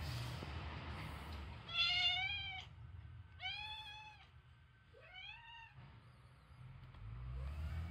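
Domestic cat meowing three times, each meow drawn out for just under a second, about a second and a half apart, the last one rising in pitch.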